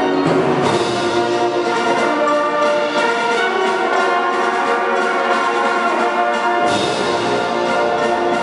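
Wind orchestra (concert band) playing sustained full-ensemble chords with the brass prominent. The sound turns brighter and fuller about half a second in and again near the end.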